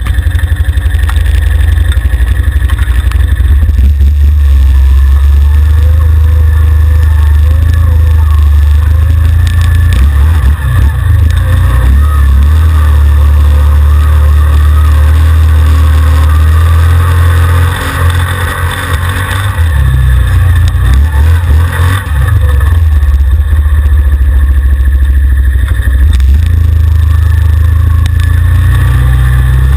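An ATV's engine runs loud and close under riding load, its note rising and falling with the throttle. It dips and wavers for a few seconds about two-thirds of the way through.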